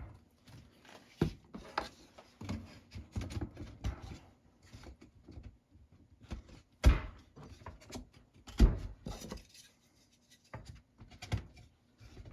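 Wooden bottom bars being set onto glued Langstroth hive frames held in a frame jig: scattered light wooden clicks and knocks, with two louder thumps about seven and nine seconds in.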